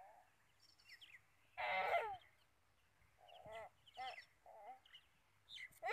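Chickens clucking and calling in a few short, wavering bursts, faint overall, the loudest about two seconds in.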